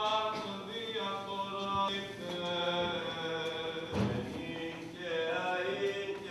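Greek Orthodox liturgical chant: a voice singing long held notes that slide from one pitch to the next, with a short break about four seconds in.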